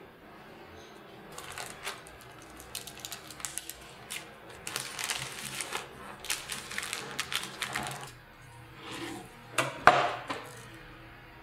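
Baking parchment paper crinkling and rustling in uneven bursts as a cream-filled sponge sheet is rolled up in it, followed near the end by one louder, sharper rustle or knock.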